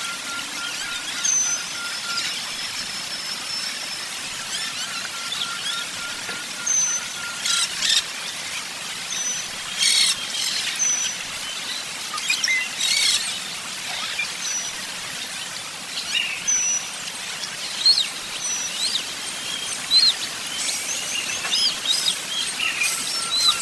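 Several birds chirping and calling: short high chirps and quick rattling trills come irregularly over a steady background hiss.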